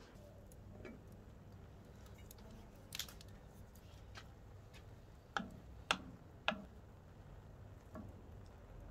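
Several sharp, separate clicks and knocks over a faint low rumble, bunched in the middle: a wooden spoon knocking against an enamel saucepan of rice as it is stirred.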